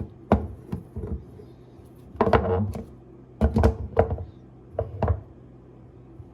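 A series of knocks and clunks of hard objects being handled and set down, in small clusters a second or so apart; the likely source is the magnetic ring phone holders being moved about.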